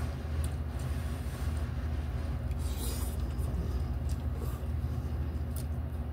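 Noodles being slurped and chewed from cup ramen: a brief slurp about three seconds in and a few small clicks of forks, over a steady low hum that is the loudest sound throughout.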